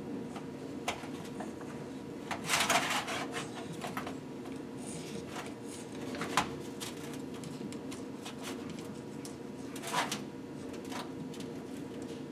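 A metal pick scraping and clicking in a piston's oil ring groove and oiling holes as old gunk is dug out. There is a cluster of scrapes a couple of seconds in and single sharp ticks later, over a steady low hum.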